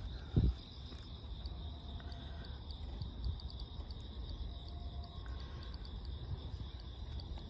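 Insects chirping: a steady high trill with quick high ticks over it, above a constant low rumble. One short dull thump comes about half a second in.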